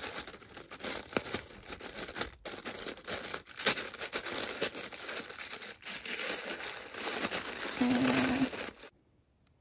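Tissue paper crinkling and rustling as it is unfolded by hand, with many small sharp crackles; it stops abruptly near the end.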